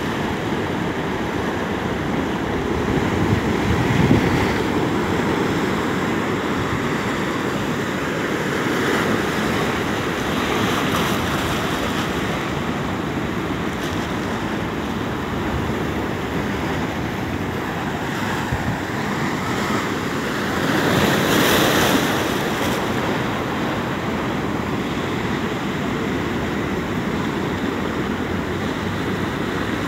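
Heavy ocean surf breaking and washing over a rock jetty, a continuous roar of white water with two louder crashes, one about four seconds in and one about two-thirds of the way through.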